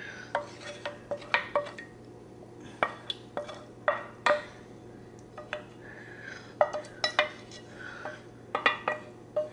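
A utensil knocking and scraping against a metal mixing bowl as Alfredo sauce is worked out of it: a string of irregular, short ringing clinks.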